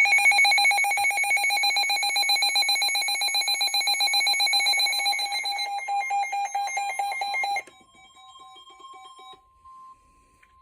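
Weather alert radio's alarm beeping loudly in rapid pulses for about eight seconds, then dropping off sharply. A faint single steady tone, the weather radio warning alarm tone, carries on until near the end, signalling a new warning about to be read.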